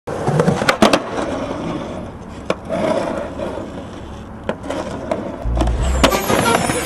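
Skateboard wheels rolling on concrete, with sharp clacks of the board popping and landing: two close together about a second in and single ones later. Music with a heavy bass beat comes in near the end.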